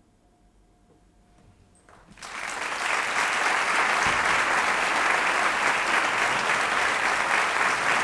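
Near silence, then an audience bursts into applause about two seconds in, quickly building to steady, sustained clapping.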